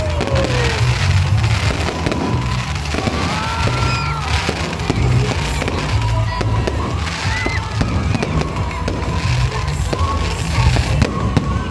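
Aerial fireworks bursting and crackling over loud music with a heavy, pulsing bass. A few short gliding whistles sound among the bursts.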